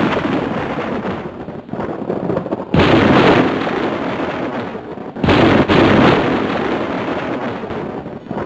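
Three loud rumbling blasts of noise, an animation sound effect: each hits suddenly and dies away over two to three seconds, one just at the start, one about three seconds in and one about five seconds in.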